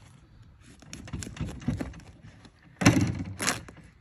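Kitchen knife sawing through a watermelon's rind, then the melon splitting open with a loud crack and thud about three seconds in.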